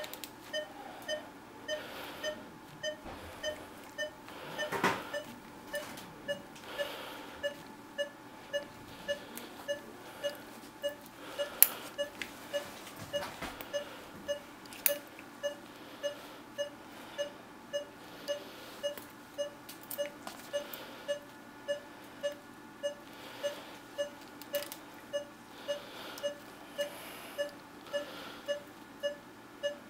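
Operating-room anaesthesia monitor beeping steadily, about one and a half short beeps a second, each beep marking the anaesthetised dog's heartbeat. A few faint clicks are heard between the beeps.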